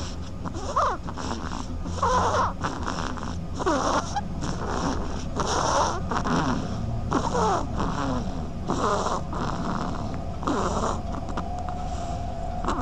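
An animal snoring in a regular rhythm, one wheezy, squeaky breath about every one and a half to two seconds. A thin steady tone comes in near the end.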